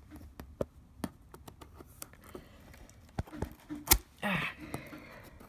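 Hands working at a sealed box to get it open: scattered small taps and clicks, then a sharp snap about four seconds in followed by a brief scraping rustle.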